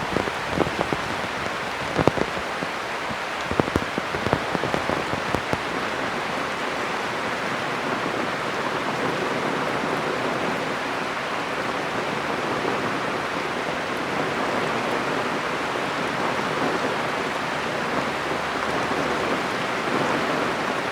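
Heavy rain falling steadily, with loud separate drops striking close by during the first few seconds before the patter evens out.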